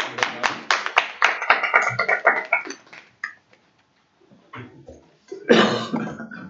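A small audience clapping, about four claps a second, fading out about three seconds in. A short loud burst of noise follows near the end.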